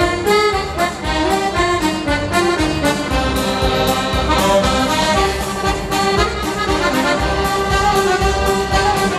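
Live dance band playing a dance tune with a steady beat.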